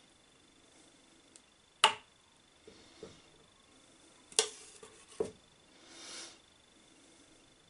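Stainless steel ladle clinking against a metal pot and a glass jar while spooning thick pepper purée: three sharp clinks, the first the loudest, with a few lighter taps between, then a short soft scrape of the ladle in the pot.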